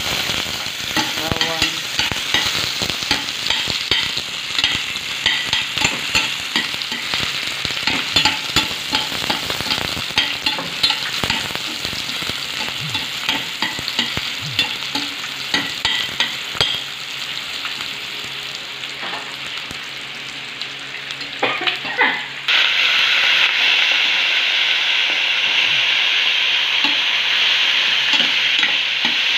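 Sliced onions and garlic frying in hot oil in a stainless steel pan, with a metal spatula clicking and scraping against the pan as they are stirred. About 22 seconds in, raw chicken livers go into the pan and a louder, steady sizzle takes over.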